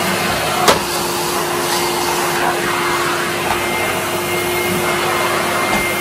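Hoover Aqua Jet S4514 tub vacuum cleaner running steadily, its 1200-watt motor giving a constant rushing hum with a faint whine. A single sharp click comes about a second in.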